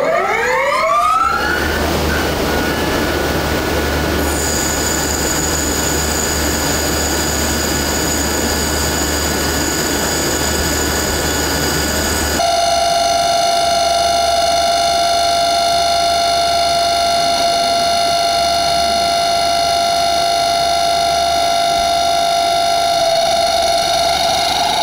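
CNC lathe boring cut with an ISCAR Whisperline anti-vibration boring bar: a rising whine as it starts, then steady cutting hiss with faint high tones, the bar running without chatter. About twelve seconds in, the sound switches to a conventional boring bar cutting at 5xD overhang, with a loud, steady, pitched squeal and several overtones: tool chatter from vibration.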